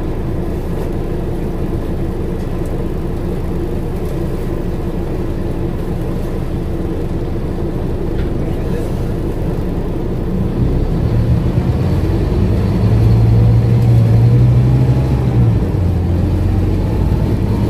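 Scania N230UD OmniCity's diesel engine heard from inside the bus. An even low rumble holds for about ten seconds, then the engine note grows louder and rises as the bus pulls away under power. Near the end the note drops once, as at an upshift of the ZF automatic gearbox, and then climbs again.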